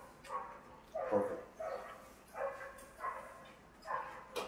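A dog barking repeatedly, about seven short, high barks, some sliding down in pitch.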